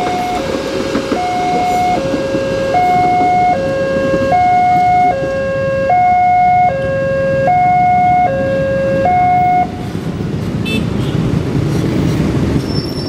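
Railway level-crossing warning alarm sounding an electronic two-tone hi-lo signal, the notes alternating about every 0.8 s. It cuts off about ten seconds in as the crossing reopens, leaving the rumble of many motorcycle engines pulling away over the tracks.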